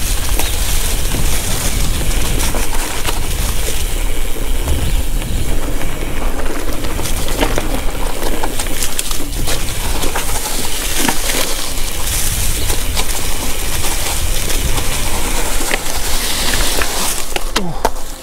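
Mountain bike ridden over a rough dirt singletrack: a steady rush of wind noise with heavy low rumble, and frequent short clicks and rattles from the bike over the rough ground.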